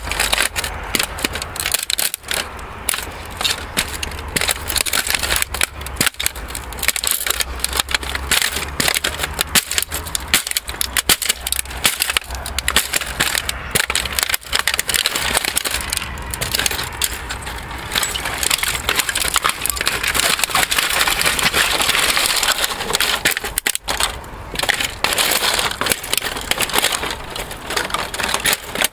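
A fax machine's plastic casing and internal parts cracking and crunching under riding boots as they stamp and grind on it: a continuous run of sharp snaps and crackles.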